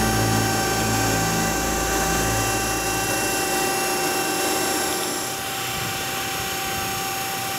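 Drill-pipe OD grinding machine running with a steady, high whine made of several steady tones. A low hum underneath drops out about three seconds in.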